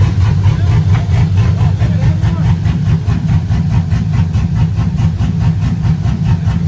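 Truck engine idling loudly and steadily, a deep rumble with an even, fast pulse.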